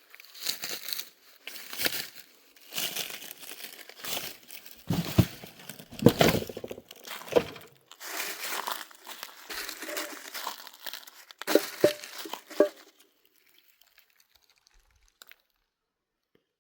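Irregular rustling and crinkling, loud and close, in uneven bursts that stop about thirteen seconds in.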